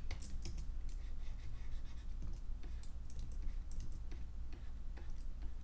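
Irregular light clicks and taps of computer keys and a pen stylus on a drawing tablet during digital drawing, over a steady low electrical hum.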